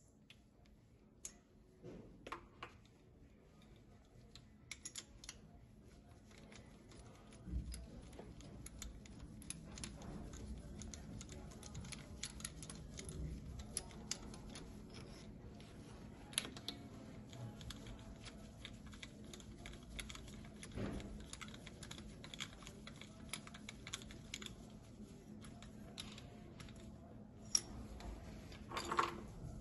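Scattered light metal clicks and clinks of hand tools and fittings as a compression gauge's hose adapter is unscrewed and fitted to the next cylinder of a diesel engine, with a sharper click or two near the end.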